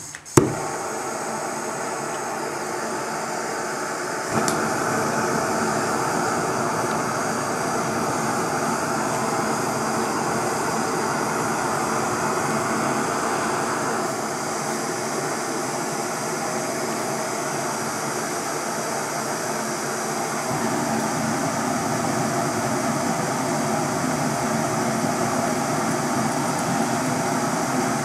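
MAP gas torch flames burning into a small melting furnace with a steady rushing noise, which gets louder about four seconds in and shifts in level a couple more times. A single sharp click comes right at the start.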